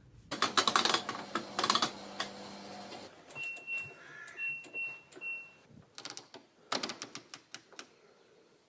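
Washing machine programme selector dial being turned, clicking rapidly through its positions, with a few short high electronic beeps partway through and then another quick run of clicks.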